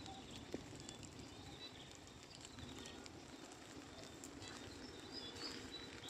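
Faint outdoor country ambience: a steady low background noise with scattered short, high bird chirps, clearest near the end.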